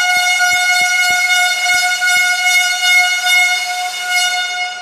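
A loud horn sounding one long, steady note, fading out near the end. A few dull thumps sound under it in the first couple of seconds.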